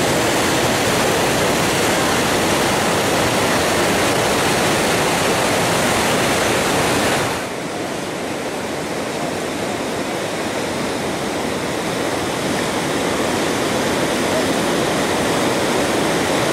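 White-water river rapids rushing and churning, a loud, steady noise of turbulent water. It drops quieter about seven seconds in and builds back up from about twelve seconds.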